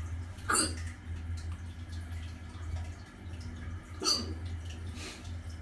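A man's hiccups: two sharp hiccups about three and a half seconds apart.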